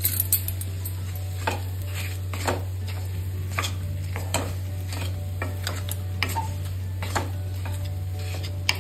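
Wooden spoon stirring and scraping a thick chana dal and jaggery filling in an iron kadhai: repeated scrapes, roughly one or two a second, over a steady low hum.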